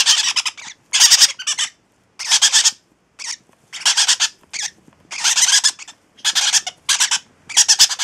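Baby parrot chicks squawking: about a dozen short, harsh, raspy calls, each broken into rapid pulses, with brief gaps between them.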